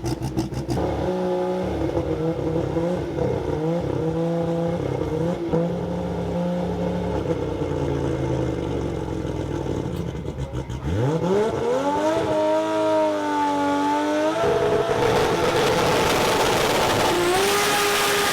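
A 2700 hp VL Holden Commodore drag car's engine running lumpy at low revs, then revving up steeply about eleven seconds in and holding high revs. A broad hiss joins it for the last few seconds.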